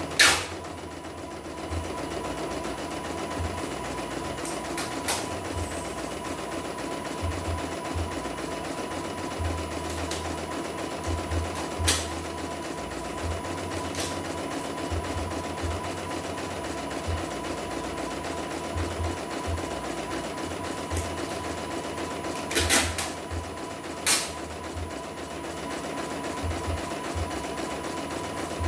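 CNY E900 portable computerized embroidery machine stitching out a test design: its needle mechanism runs steadily and rapidly. A few sharp clicks stand out, one right at the start, one about halfway through and two close together about three-quarters of the way in.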